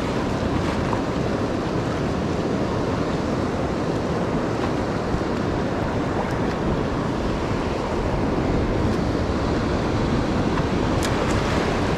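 Steady rush of ocean surf mixed with wind blowing across the microphone, unbroken and even in level.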